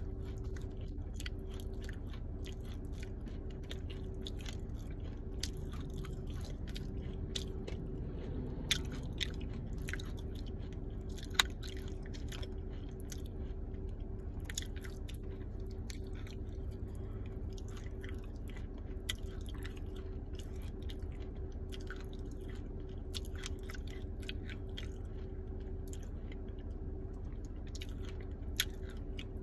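A crunchy clay ball crunching in scattered, irregular crackles, with a sharper snap about eleven seconds in, over a steady low hum.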